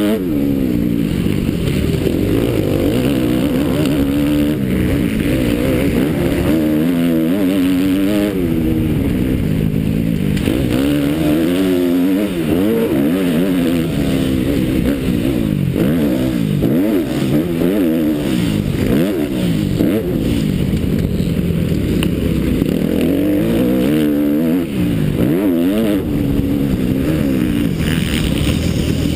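Motocross bike engine at racing speed, revving up and down over and over as the rider accelerates, shifts and backs off for the track's straights and turns.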